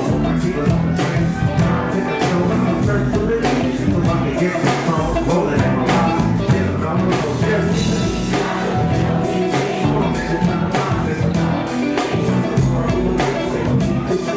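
Live hip-hop music: a steady beat with singing over it.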